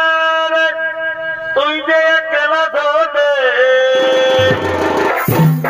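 Chhau dance music: a shehnai-style reed pipe playing a melody of long held, ornamented notes with short glides, and low folk drums (dhol and dhamsa) starting up about four seconds in.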